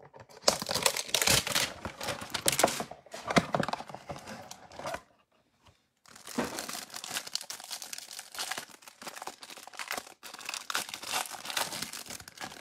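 Trading-card packaging being torn open and handled: crinkling and tearing wrapper and cardboard in two stretches, with a short pause about five seconds in.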